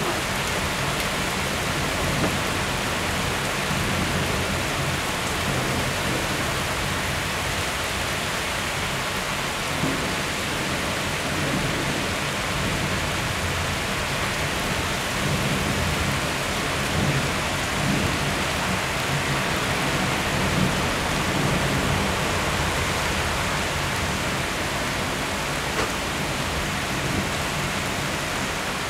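Heavy cloudburst rain pouring down in a steady hiss, with low thunder rumbling on and off beneath it.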